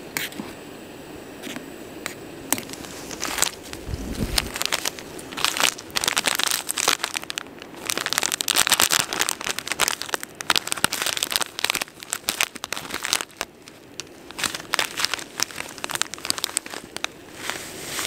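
Crinkly plastic and nylon gear being handled and packed: irregular bursts of rustling and sharp crackles, busiest from about three seconds in until near the end, with a low thump about four seconds in.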